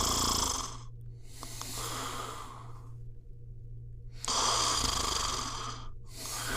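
Male Landseer Newfoundland dog snoring in its sleep: slow, noisy breaths alternating louder and softer, about two full breath cycles, with a short pause between them. The louder breaths carry a low rumble.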